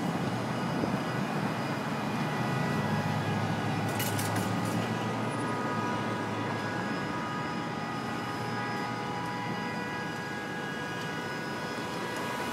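Steady traffic noise on a busy street, with a faint steady whine above it and a brief clatter about four seconds in.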